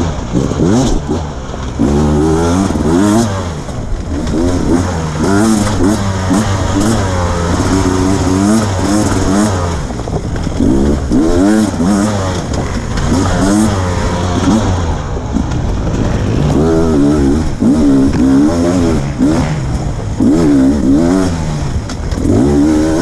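2020 Beta 300 RR Race Edition two-stroke dirt bike engine under load on a trail ride, revving up and falling back over and over as the rider rides the throttle through turns, every second or two.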